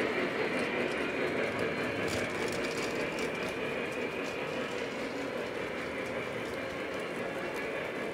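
O scale model passenger cars rolling steadily along three-rail track over a bridge, with wheels clattering and faint clicks, slowly fading as the train moves on.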